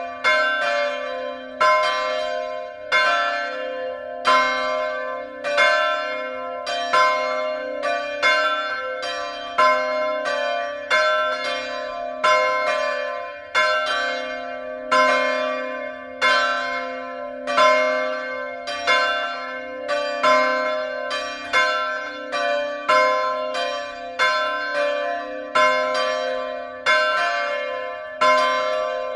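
Two 1957 Petit & Fritsen bronze swinging church bells, tuned c2 and d2, ringing together in full peal. Their clapper strikes fall a little more than once a second, in a loose alternating rhythm over a continuous humming ring.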